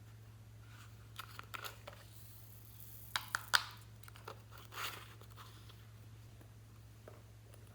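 Slime being worked by hand, giving a few scattered crackles and sharp pops, loudest about three seconds in, with a short crackly rush a little later, over a steady low electrical hum.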